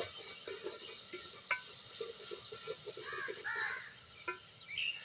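Metal spoon stirring and scraping in a steel cooking pot, with a couple of sharp clinks against the rim. Birds call in the background.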